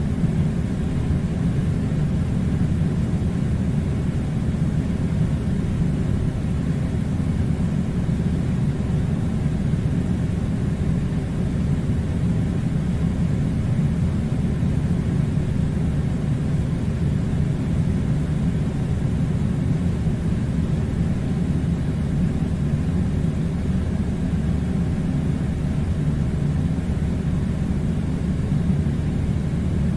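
Air conditioner running with a steady, even low rumble and hiss that does not change.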